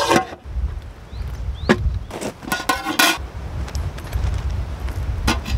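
Metal camp cookware and stove parts handled: a lid set down on a pan, then a string of clinks and knocks, with a low wind rumble on the microphone.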